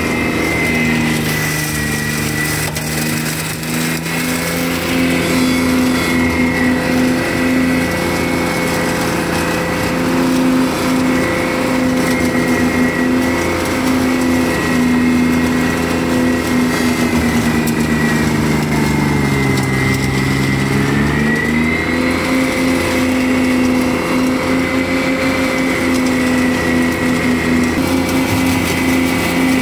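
Steiner 430 tractor engine running under load, driving a Ventrac flail mower through tall grass, with a steady high whine above the engine. About two-thirds of the way through, the engine's pitch sags for a couple of seconds and then comes back up.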